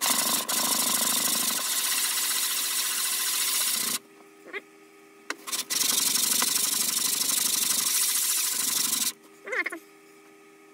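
Wooden box rubbed back and forth on a sheet of sandpaper laid flat on the bench: hand-sanding to flatten a high spot of about half a millimetre. Two bouts of steady scraping, with a pause about four seconds in, and the second bout stops about nine seconds in.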